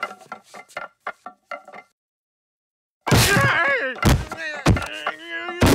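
Wooden baseball bats knocking and clattering against each other on a hard floor, a quick run of hollow knocks for about two seconds. After a pause a man groans and yells in pain, with three heavy thuds of him falling onto the bats.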